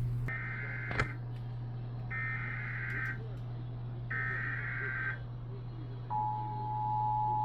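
Emergency Alert System SAME header: three bursts of warbling digital data tones, each about a second long and about a second apart, then about six seconds in the steady two-tone EAS attention signal begins, announcing the start of a new alert. A steady low hum runs underneath, with a sharp click about a second in.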